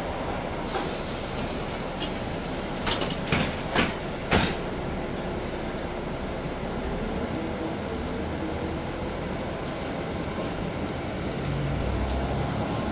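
City bus running, with a steady ride noise throughout. A hiss sets in about a second in and fades by about five seconds, a few sharp knocks come between three and four and a half seconds, and near the end a deeper rumble grows louder.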